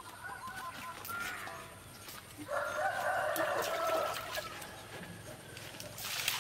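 A rooster crowing once, a long call of about two seconds, after a few short clucks from chickens. Near the end, water is poured into a metal bowl.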